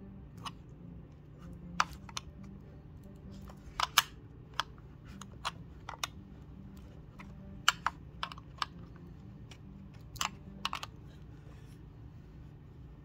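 Irregular sharp clicks and taps of a wrench on the sensor bung's nut and the plastic fuel pump housing as the nut is tightened, in small clusters over a low steady hum.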